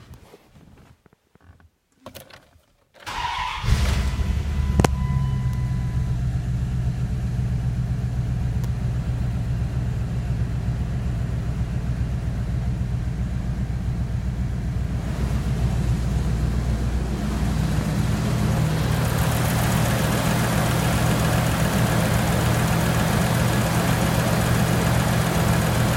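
Dodge Dakota's 5.2-litre V8 cranking briefly and catching about three seconds in, then idling steadily at around 1,000 rpm. It is heard first from inside the cab and, from about fifteen seconds on, louder and brighter at the open engine bay.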